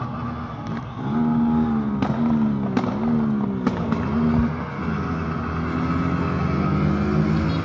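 Several motorcycles revving their engines, the pitch rising and falling over and over from about a second in, with horns sounding steadily underneath.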